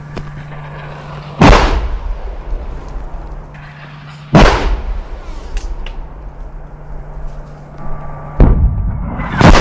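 Mortar rounds exploding close by: four heavy blasts a few seconds apart, the last two about a second apart near the end, each dying away over about a second. A steady low hum runs beneath them.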